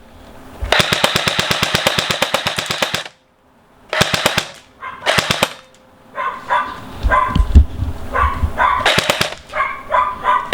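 Cyma CM.060 P90 electric airsoft gun firing full auto: a rapid mechanical rattle of shots in one long burst of about two and a half seconds, then several short bursts.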